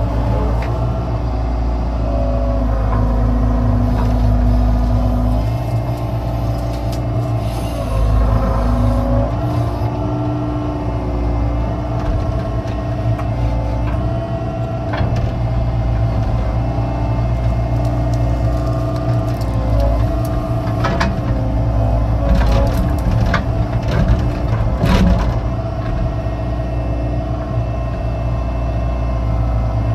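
Excavator's diesel engine running steadily under load, with hydraulic whines that step up and down in pitch as the arm and bucket work a ditch. Scattered sharp knocks come through, several of them bunched about two-thirds of the way in.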